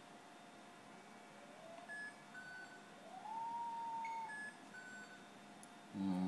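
BioMeridian bio-resonance testing machine sounding its measuring tone: the tone glides up in pitch, then a second time glides up and holds steady for about a second while the reading registers. Short high beeps in pairs come around it.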